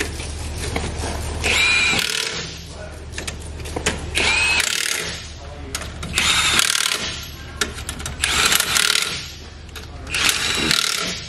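Handheld impact wrench running the lug nuts on a pickup truck's wheel in five short bursts about two seconds apart, each a whirring burst that rises in pitch as it spins up.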